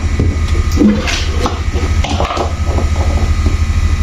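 A few short clicks and knocks from a power lead and plug being handled and pushed into a mains socket, over a steady low hum.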